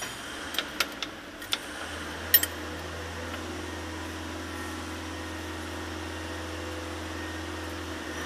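A few light metal clinks, then an electric motor's steady hum starts about two seconds in and cuts off near the end.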